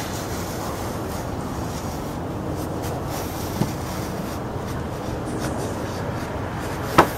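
Paper rubbing and rustling as a fingernail scrapes along a sheet pressed against a van's plastic front bumper to trace its outline, over a steady low background rumble; a small click about halfway and a sharper click near the end.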